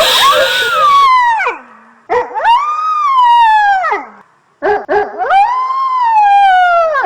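Ghostly crying sound effect: a high voice wailing in three long cries, each rising and then falling in pitch, with short breaks between them.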